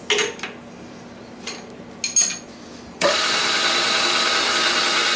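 A few light metal clinks while an 8 mm end mill is fitted, then about three seconds in the Optimum MB4 milling machine's spindle starts suddenly and runs steadily with a whine, not yet cutting.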